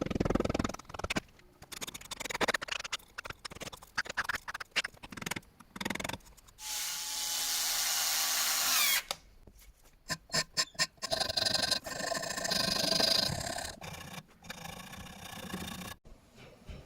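Workshop tool sounds in short, abruptly cut clips: scraping and knocking strokes of hand work, with a power tool running steadily for a few seconds at a time, about a third of the way in and again in the second half.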